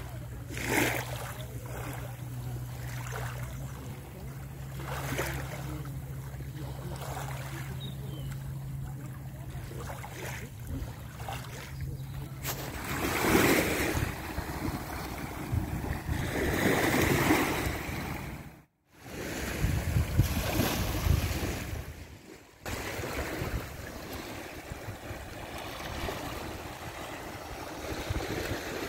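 Small sea waves lapping and washing onto a concrete slipway, with wind gusting on the microphone. A low steady hum runs under the first dozen seconds, and the sound drops out briefly twice.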